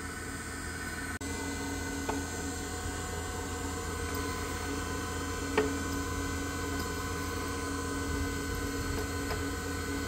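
Small electric motor of a JMA Nomad key-duplicating machine running steadily while a key is cut, with a few faint clicks from the carriage.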